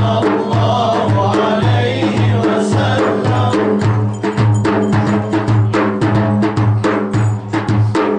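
Two large frame drums beating a steady rhythm, about two deep strikes a second with sharper slaps between, under a group of men singing a Turkish hymn (ilahi) over a held drone.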